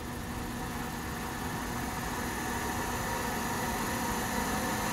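Electric drive motor and gearing of an Aronson 20-ton welding turning roll running, turning the rollers: a steady mechanical hum with a faint whine, growing slightly louder.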